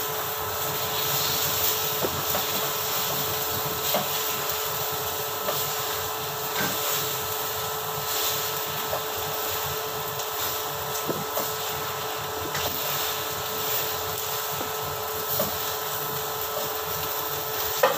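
Steady mechanical hum and whir with a constant tone, like a running motor or fan, with a few faint small clicks of a knife against garlic cloves.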